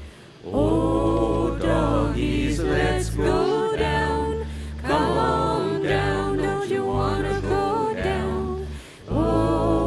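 Voices singing a cappella in harmony over a steady low bass line, in phrases of a few seconds with short breaks between them.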